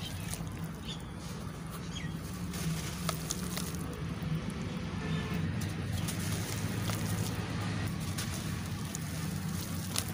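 Hands squeezing and crumbling crunchy charcoal-mix lumps in a basin of water: wet splashing and sloshing with scattered small crackles, over a steady low hum.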